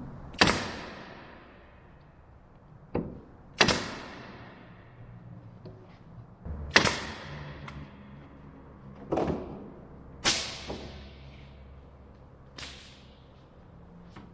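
Pneumatic brad nailer firing about seven times at irregular intervals, each shot a sharp crack followed by a short hiss, driving brad nails into the edges of wooden boards.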